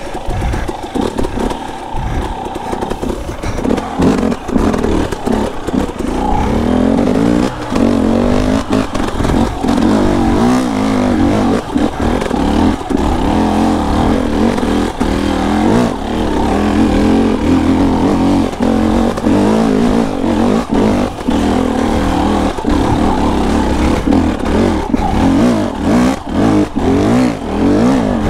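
KTM enduro dirt bike engine running under a rider on tight single track, its pitch rising and falling as the throttle is worked on and off. Frequent short knocks from the bike over the rough trail.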